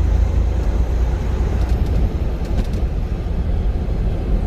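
Semi truck's diesel engine and road noise heard from inside the cab: a steady low rumble as the truck pulls away on a snowy road after finding traction. A few faint ticks come about two seconds in.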